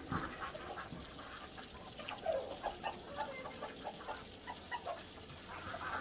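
Flock of ducks quacking and chattering in short, repeated calls.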